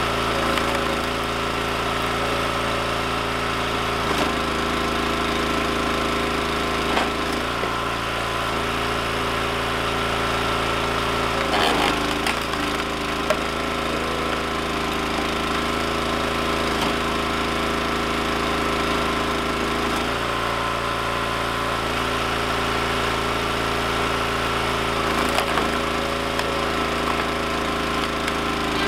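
Gas engine of a Wolfe Ridge hydraulic log splitter running steadily, its note shifting several times as the ram pushes logs through the splitting wedge. A few sharp cracks of wood splitting, about twelve seconds in and again near twenty-five seconds.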